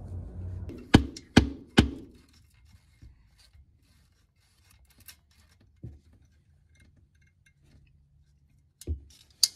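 Ratchet and socket on an extension working the starter bolts: three sharp metallic clicks about a second in, faint scattered tool-handling sounds, then two more clicks near the end.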